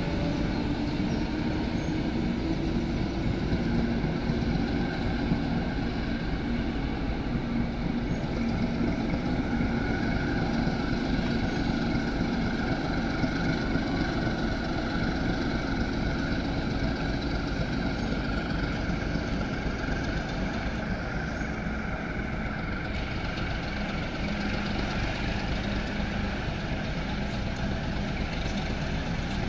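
Railway diesel engine running steadily: a low drone with a constant hum that rises slightly in pitch over the first few seconds and then holds level.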